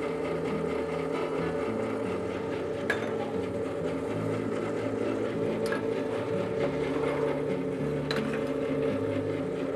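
Commercial stand mixer running steadily, its wire whisk whipping egg whites as sugar is added. A few brief ticks come at about three, six and eight seconds.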